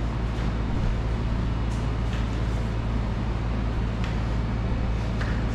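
Steady low background rumble, with a few faint short taps and scuffs from the feet of a capoeira player repeating kicks.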